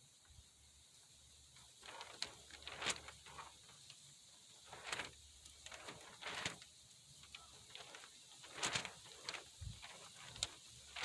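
Hot soldering iron's copper tip sizzling in short, irregular hisses as solder is melted onto it to re-tin the tip.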